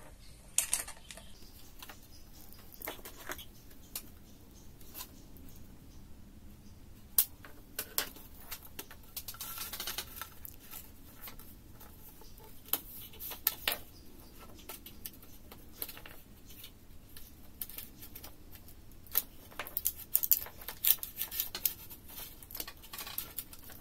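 Scattered plastic clicks, taps and light rattles of a white plastic LED tube lamp being taken apart by hand. The clicks come thicker near the end.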